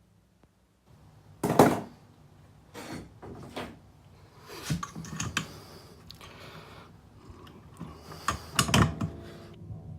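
Irregular clunks and knocks of metal parts and tools being handled while working on the mower's rear wheel assembly, with scraping in between. The loudest knock comes about one and a half seconds in, and a quick cluster of knocks comes near the end.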